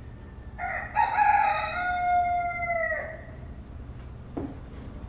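A rooster crowing once, a single cock-a-doodle-doo starting about half a second in and lasting a little over two seconds, its pitch dropping at the end.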